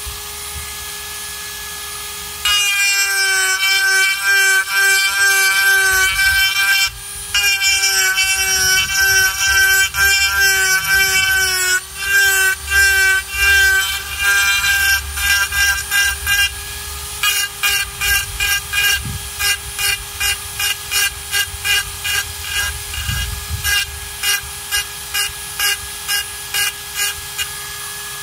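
Flex-shaft rotary tool running with a steady whine while its carving burr grinds into a gourd shell. The grinding is sustained at first and breaks off briefly twice. In the last ten seconds or so it becomes short touches of the burr, about two a second.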